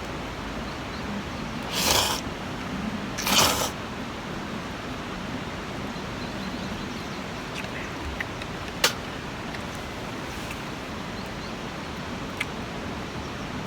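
Steady rushing of a mountain stream. Two short noisy bursts come about two and three and a half seconds in, and a sharp click comes near the middle.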